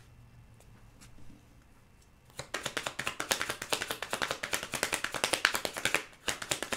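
Tarot cards being shuffled by hand: a fast run of crisp card-edge clicks starting about two and a half seconds in, a short break near the end, then a second run.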